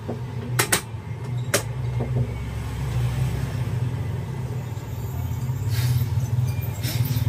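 A steady low rumble with a few sharp clicks, the loudest about a second in.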